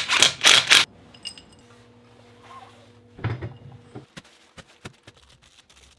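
A DeWalt 20V cordless impact driver rattles in short trigger bursts on the crankshaft bolt of an aluminium Subaru engine block. It stops about a second in. A quieter knock and a run of light metallic clicks and clinks follow as the block is handled on the bench.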